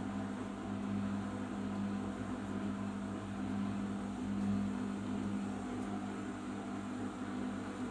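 Arçelik 5083 washing machine running with a steady low hum, part of its final rinse and spin.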